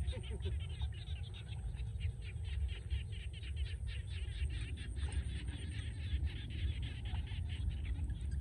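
A fast, continuous chatter of distant bird calls over a steady low rumble.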